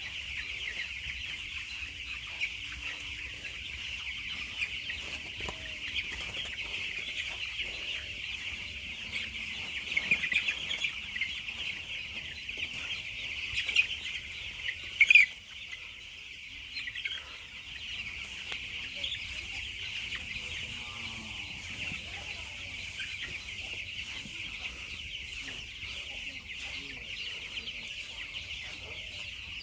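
Chickens clucking, over a steady high-pitched drone, with one short loud sound about fifteen seconds in.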